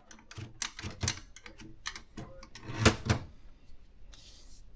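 Maritsa 30 portable manual typewriter being typed on: an irregular run of sharp key strikes, the loudest about three seconds in, with a brief hissing noise near the end.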